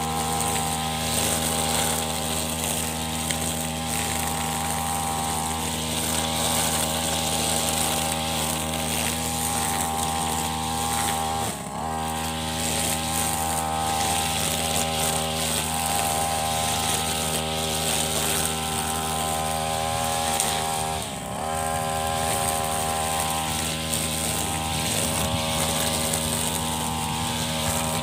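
Petrol brush cutter with a nylon trimmer line running at high revs as it cuts short grass. Its engine note dips briefly twice, near the middle and about three-quarters through, and picks straight back up.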